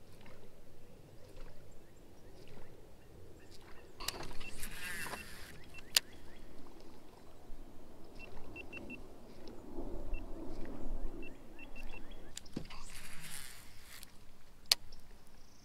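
Baitcasting reel casting and retrieving. Twice the spool whirs briefly as line pays out on a cast, and each time a sharp click follows a second or so later as the reel is engaged. Between the casts there is faint quick ticking from the reel being cranked.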